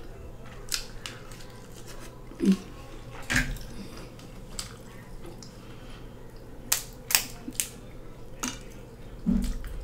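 Close-up eating of lobster tail and snow crab meat: a scatter of short, sharp wet clicks and smacks from mouth and shell, three close together about seven seconds in.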